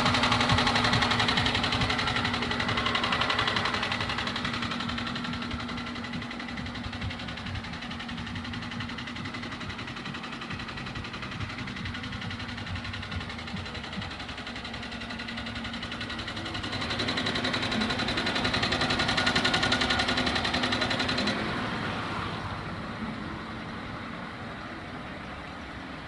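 Chevrolet Niva's four-cylinder petrol engine running with a rapid, regular knock from inside the engine. It gets louder twice, in the first few seconds and again a little past the middle, then settles back.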